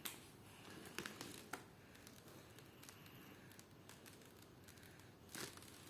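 Near silence: room tone with a few soft taps and paper rustles from colouring with a felt-tip marker, one at the start, a small cluster about a second in, and one near the end.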